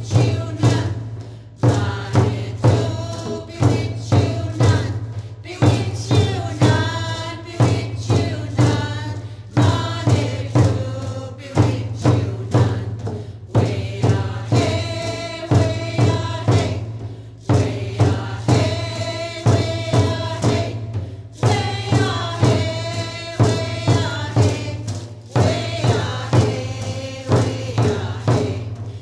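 A drum beaten in a steady rhythm with a group of voices singing a chant over it, in the style of a powwow song.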